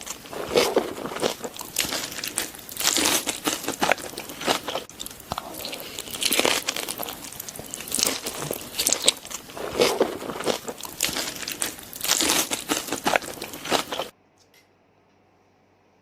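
Close-miked eating sounds: a person chewing and crunching mouthfuls of food, with irregular bites and wet mouth clicks. The sound cuts off suddenly about fourteen seconds in.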